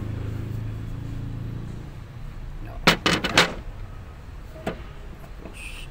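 Parts of a diesel fuel filter water separator being handled. A clear plastic bowl and its housing give a quick run of four sharp clicks and knocks about three seconds in, and one more click near the end. Under them is a low steady hum that fades after about two seconds.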